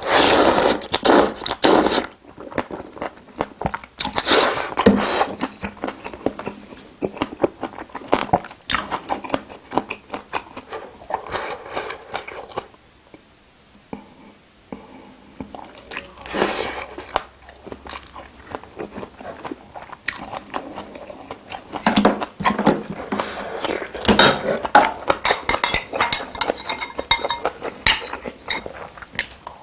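Close-miked eating of spicy seafood boil: chewing and biting in irregular loud bursts, with some crunching.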